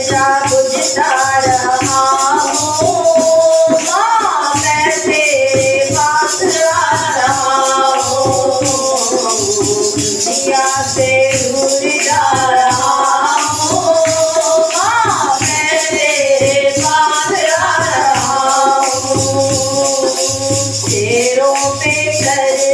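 Women singing a Hindi devotional bhajan together, with a dholak keeping a steady beat and a hand-held jingle rattle shaken continuously.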